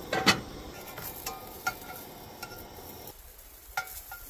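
Smokies sizzling on a propane camp grill, with scattered sharp clicks and pops; the loudest pop comes about a quarter second in.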